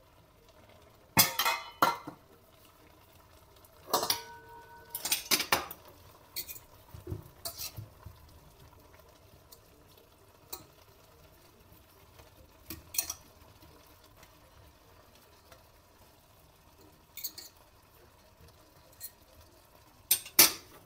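Kitchenware clinking and knocking as a stainless steel pot, a glass bowl, a plate and metal cutlery are handled: scattered sharp clinks, one about four seconds in ringing briefly. Near the end, a quick cluster of clinks from cutlery on the plate.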